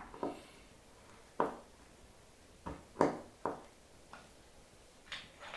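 Hand screwdriver working a screw into a laminated particleboard IKEA Kallax shelf panel: a series of about eight short, sharp clicks and knocks at uneven intervals as the blade turns and re-seats in the screw head.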